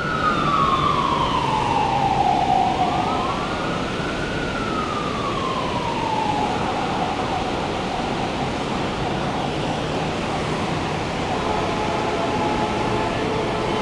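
Emergency vehicle siren wailing, slowly rising and falling in pitch in long sweeps. It fades out about six seconds in, leaving a steady rushing background noise.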